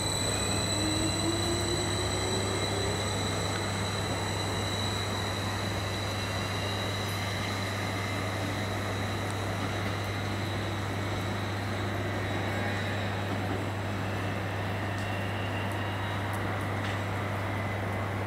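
A train running on the line at the station: a steady rumble with faint high whines, a few of them gliding in pitch near the start.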